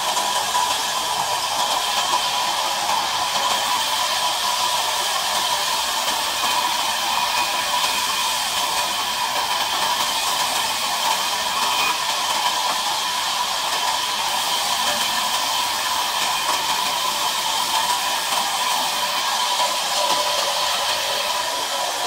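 Sawmill band saw running steadily: a continuous whirring hiss with a few steady tones over it.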